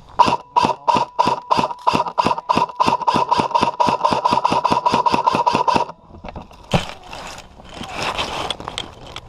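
Airsoft gun firing a long rapid string of shots, speeding up to about six a second over a steady whine, for nearly six seconds. Then a single sharp crack comes about seven seconds in.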